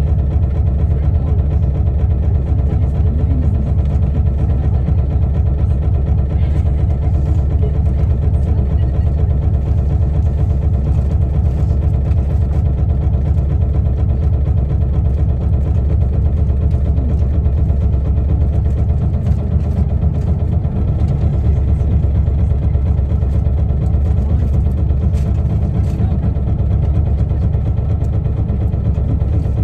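Isuzu Erga KL-LV280L1 city bus's diesel engine running steadily, a low drone that holds an even pitch and level.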